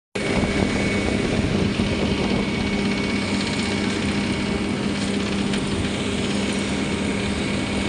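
Vögele Super 1800-3 asphalt paver running steadily while laying bituminous concrete: a constant diesel engine hum with a faint high whine over it.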